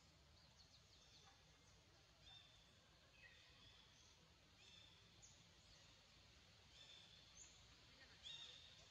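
Faint outdoor quiet with small birds chirping in the background: short high chirps and brief trills every second or so, the loudest a little before the end.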